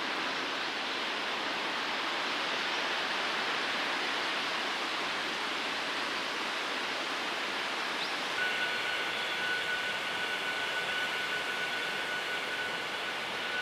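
Steady rushing outdoor background noise. About eight seconds in, a steady high whine joins it and holds.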